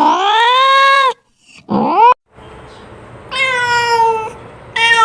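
Domestic cat meowing: a long drawn-out meow that ends about a second in, a short meow cut off abruptly, then after a brief gap two more meows.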